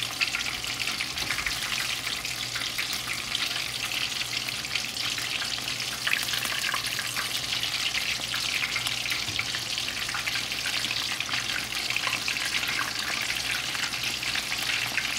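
Breaded chicken strips deep-frying in hot oil in a wok: a steady sizzle with dense fine crackling.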